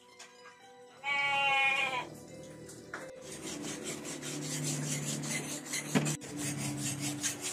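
A farm animal bleats once, loudly, for about a second, starting about a second in. Afterwards a steady scratchy rasping with rapid fine ticks sets in.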